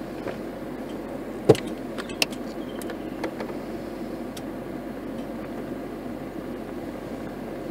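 Car engine idling steadily, heard from inside the cabin, with one sharp knock about a second and a half in and two fainter clicks shortly after.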